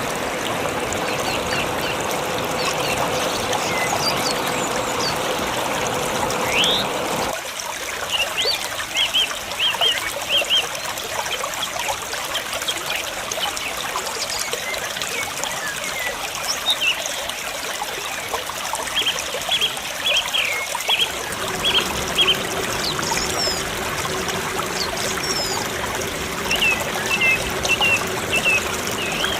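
Steady rush of falling water from a waterfall, with repeated short, high bird chirps over it. The deeper part of the water sound drops out about seven seconds in and returns about two-thirds of the way through.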